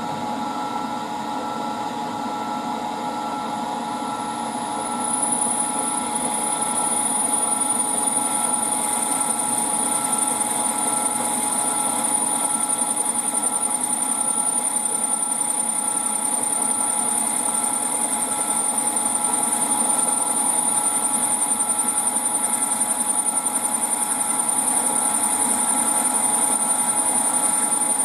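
Drilling-machine spindle running steadily with a constant hum. Four to five seconds in it gets louder and a high whine joins as the drill cuts into the brass bracket.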